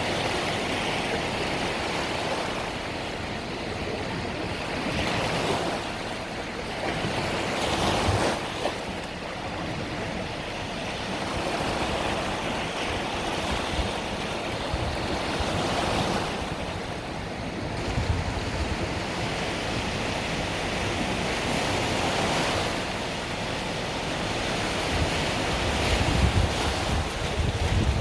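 Small Mediterranean waves breaking and washing on the beach, swelling and fading every few seconds, with some wind buffeting the microphone near the end.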